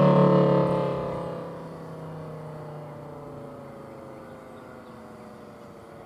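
Thunderbolt 1000T rotating siren, a three-phase 1000AT, winding down after power is cut. Its pitch falls steadily, fading quickly over the first second and a half, then dying away as a faint falling tone.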